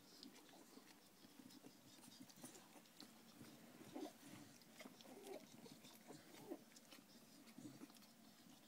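Faint small squeaks and snuffles from three-week-old Staffordshire bull terrier puppies, a few short ones about halfway through, among soft little clicks.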